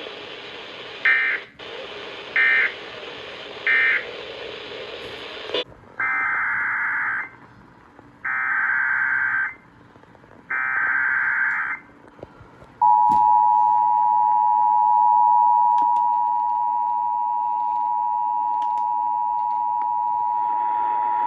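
Emergency Alert System data bursts and attention signal. First come three short digital bursts over a hiss, then three one-second SAME header bursts, and then the two-tone EAS attention signal, two steady tones sounding together for about eight seconds. Together they mark the end of one weather-radio alert and the start of a broadcast station's relay of a flash flood warning.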